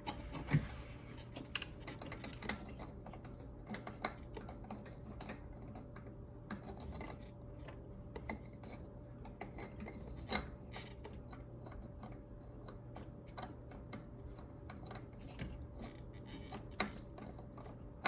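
Scattered, irregular light clicks and taps of hands handling and fitting a metal turbo inlet pipe and its mating parts, over a faint steady hum.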